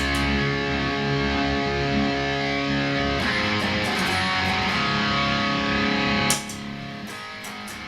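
Electric guitar played through a Boss Katana 100 amplifier, chords ringing out, with a new chord struck about three seconds in. About six seconds in the volume drops sharply as the unpowered expression pedal switches the amp down to the quieter rhythm level.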